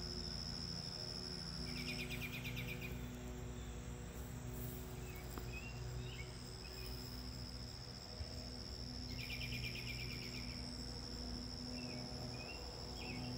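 Insects, likely crickets, trilling steadily at a high pitch. Twice, about two and nine seconds in, a rapid pulsed trill lasting about a second cuts in, with a few faint short chirps in between. The steady trill drops out for a few seconds after the first burst.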